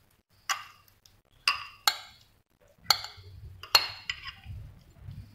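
A metal spoon clinking and knocking against a bowl about five times at uneven intervals as minced meat is scraped out of it.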